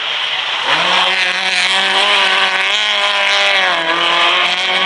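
Rally car engine revving hard as it passes: the pitch climbs about a second in, holds high with a slight waver, then drops back a little near the end.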